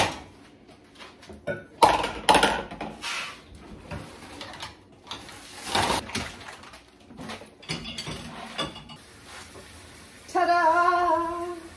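Dishes being loaded into a dishwasher: plates, bowls and glasses clinking and knocking against each other and the wire racks in a series of separate clatters. About ten seconds in, a voice holds a drawn-out call.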